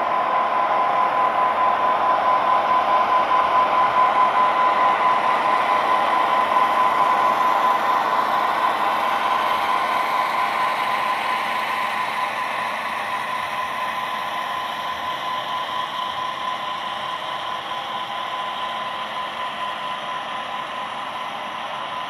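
Model diesel locomotives' onboard sound decoders playing a diesel engine running steadily through small speakers, mixed with the hum of the running train. It is loudest in the first few seconds and slowly fades.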